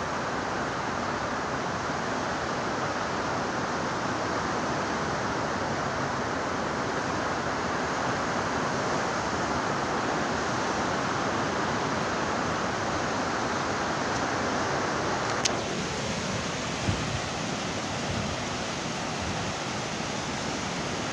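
Ocean surf at a beach: a steady, rushing wash of breaking waves. About fifteen seconds in there is a click, after which the sound is duller, with a few small thumps.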